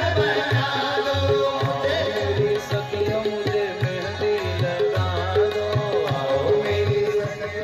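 Live devotional bhajan music: drums beat a steady, quick rhythm under a wavering melody.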